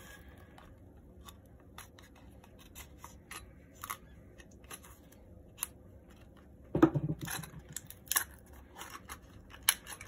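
Knife cutting open a stiff plastic blister pack, with scattered clicks and crackles of the plastic and a louder burst of crackling about seven seconds in.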